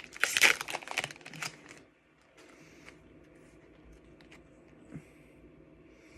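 Foil booster-pack wrapper crackling and crinkling as it is handled and opened: a quick run of sharp crackles for the first two seconds. After that come a few faint ticks as the cards are handled.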